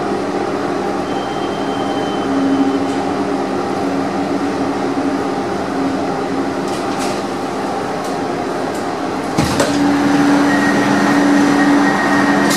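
Interior running noise of an AnsaldoBreda driverless metro train pulling into a station: a steady rumble with motor hum as it slows along the platform. About nine seconds in there is a sharp clunk, then a steady high tone sounds as the doors begin to slide open.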